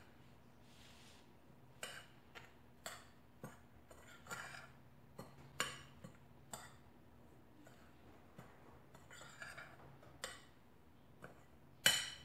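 A spoon scraping and clinking against a mixing bowl while stirring dry flour mix: irregular short scrapes and taps, the loudest near the end.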